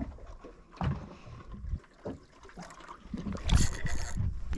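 Water sloshing and lapping against a small boat's hull, irregular and noisy, growing louder about three seconds in.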